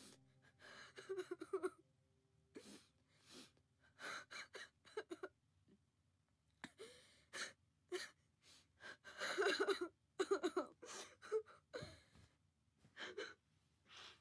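A boy sobbing: catching, gasping breaths and short whimpers in irregular bursts, loudest about nine to ten seconds in.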